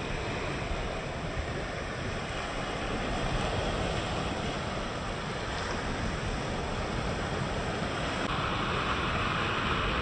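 Sea waves breaking and washing up the beach, a steady rush that swells a little about three seconds in and again near the end, with wind rumbling on the microphone.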